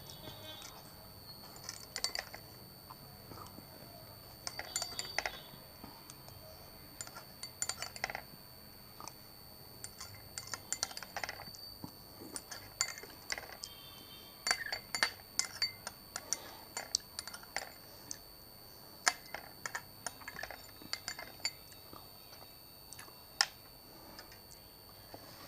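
Cutlery clinking and scraping against a dish in irregular clusters of sharp clicks while eating, over a faint steady high-pitched whine.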